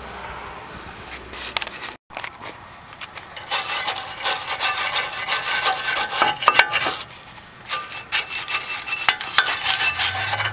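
Hand brush scrubbing the brake caliper bracket where the pads sit, in quick repeated scraping strokes. This cleans the pad seats before new pads go in. The scrubbing starts a few seconds in and pauses briefly about two-thirds of the way through.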